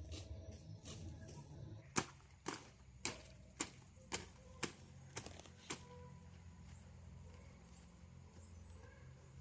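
Bamboo being struck in steady work, about eight sharp knocks roughly two a second, stopping a little before six seconds in.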